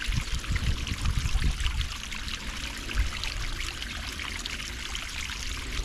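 Water streaming and trickling steadily out of a pool sand filter's multiport valve, leaking past a spider gasket that is not yet seated. A low rumble sits under it in the first couple of seconds.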